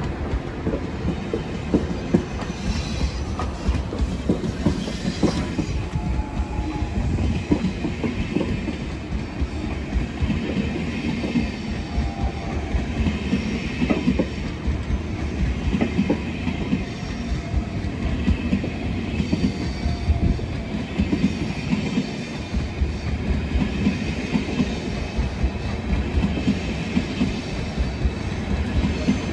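Train running along the track, its wheels clattering rapidly over the rails, with a faint high squeal from the wheels coming and going.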